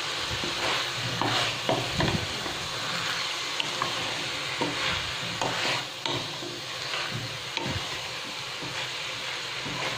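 A spatula stirring and scraping boiled potatoes and French beans around a nonstick kadai over a steady sizzle of frying oil, with occasional short knocks of the spatula against the pan.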